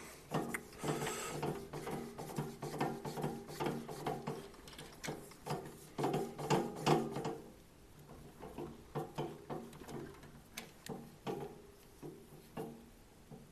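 Drill press chuck being worked by hand to fit the insert-driving tool: irregular metallic clicks and rattling, busy for the first half, then sparser single clicks.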